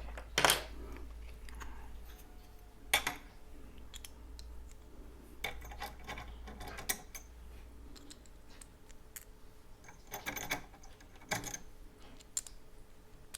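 Small extruder parts being handled and fitted by hand: scattered clicks and taps of metal and plastic pieces, the sharpest about half a second in and near three seconds, with another cluster around ten to eleven seconds.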